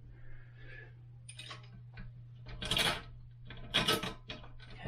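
Toilet seat mounting hardware being handled and fitted: a few short clinks and rattles, the two loudest about three and four seconds in, over a steady low hum.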